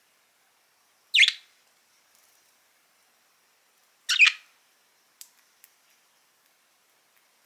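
Budgerigar giving two short, loud chirps about three seconds apart, followed by a couple of faint clicks.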